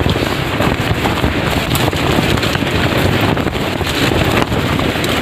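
Strong wind blowing hard across the microphone: a loud, steady rush of wind noise.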